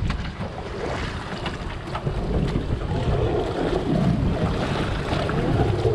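Wind buffeting the microphone over a Suzuki outboard motor running in gear, with water churning and splashing at the stern.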